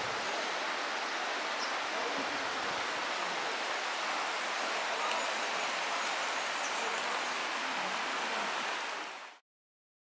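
River water running steadily over a shallow, rippling bed, an even rushing noise that fades out about nine seconds in.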